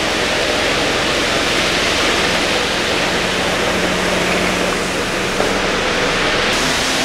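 Steady rushing noise of a stone-working factory floor as a Mitsubishi forklift drives close past, its low engine hum coming through in the middle.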